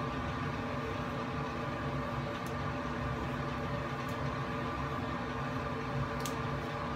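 Steady machine hum made of several pitched tones, with a few faint ticks.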